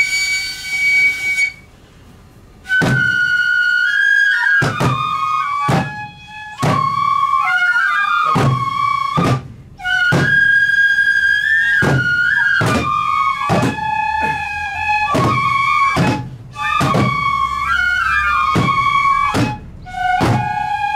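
Japanese festival music for a shishimai lion dance: a transverse bamboo flute plays a melody, its notes sliding between steps, over steady drum strokes about once a second. A short flute note sounds at the start, then the playing resumes after a brief pause.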